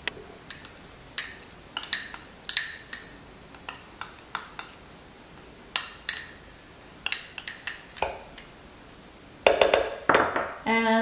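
Kitchen utensils and dishes clinking and tapping: a dozen or so light, irregularly spaced clinks, with a louder clatter near the end.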